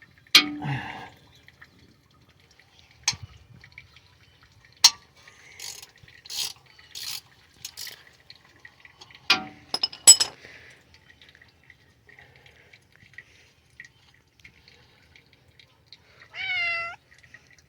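Transfer case fluid draining from the case into a catch pan, heard as scattered drips, clicks and short splashy hisses. Near the end comes one short pitched call that bends in pitch.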